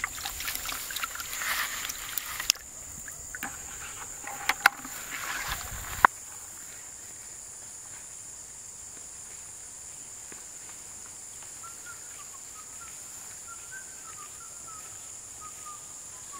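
A steady high insect drone, like crickets or cicadas. For the first six seconds it is joined by rustling and a few sharp knocks, which stop abruptly. Faint short bird chirps come in during the second half.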